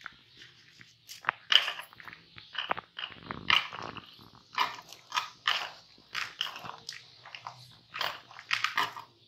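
Hands tearing and crumbling roasted corn-flour rotis (makki ki roti) into small pieces in a bowl: irregular crunching and crackling as the bread breaks up.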